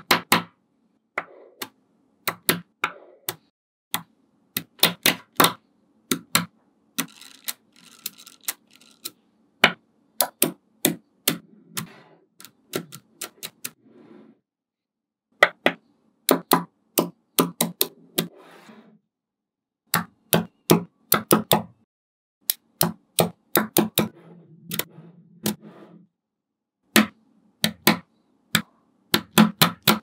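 Small neodymium magnet balls clicking as they snap onto one another one at a time: many sharp, irregular clicks with a few short pauses of about a second.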